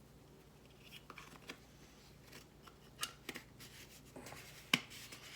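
Scattered small clicks and light rustles of a spice container and measuring spoon being handled while a teaspoon of ground marjoram is measured into the pot, with one sharper click near the end.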